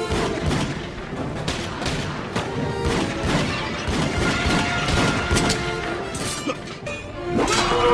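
Film battle soundtrack: orchestral music under a rapid series of sharp gunshots, booms and crashes, getting louder near the end.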